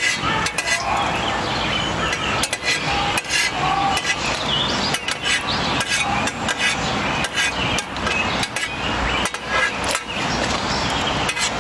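Hot oil sizzling and crackling around a large batter fritter deep-frying in a wok, with many sharp pops. A metal ladle spoons oil over the top and scrapes the pan now and then.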